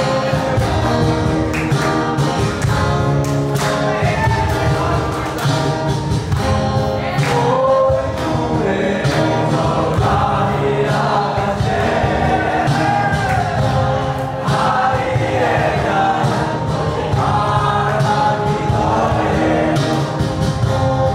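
Live acoustic band: two acoustic guitars strumming chords and a cajon keeping the beat, with male singing over them.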